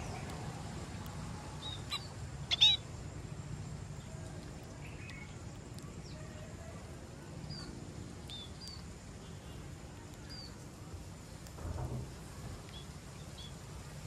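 A feeding flock of small birds gives short, scattered high chirps, about a dozen in all. The loudest is a sharp chirp with a click about two and a half seconds in. A steady low outdoor rumble runs underneath.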